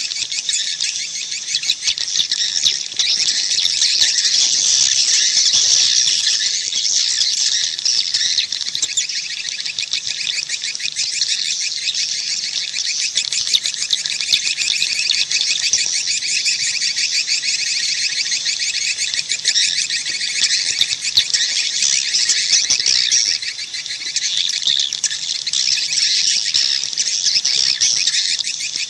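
Swiftlet calls: a dense, unbroken high-pitched twittering chatter of many birds, rapidly pulsing. This is swiftlet call audio of the kind played from swiftlet houses to draw the birds in to roost and nest.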